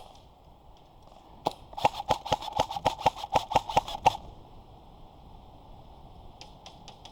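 Airsoft gun firing: a single shot, then a rapid string of about fourteen shots at roughly six a second lasting about two seconds, and a few fainter shots near the end.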